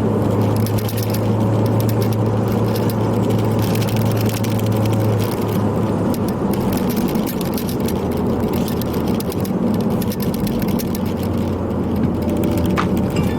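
Ford Focus ST's turbocharged four-cylinder engine running steadily while driving, its note stepping lower about five seconds in. Camera strap clips rattle fast and continuously against the mount.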